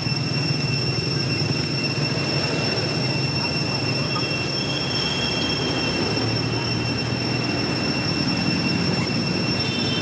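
Steady background drone with a constant high-pitched whine over a low rumble, unbroken throughout. Fainter high tones come and go briefly about halfway through and again near the end.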